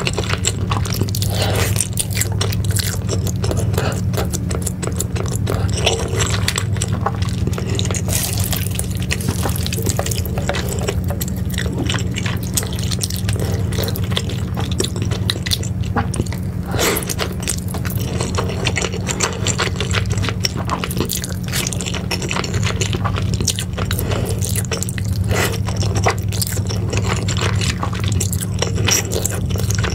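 Close-miked eating sounds: wet slurping and chewing of sauce-coated noodles with melted cheese, a dense run of small sticky smacks and clicks, over a steady low hum.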